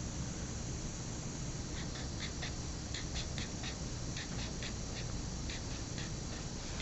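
A drawing tool making a quick series of short strokes on paper, about fifteen small scratches or squeaks in irregular succession, over a faint steady room hum.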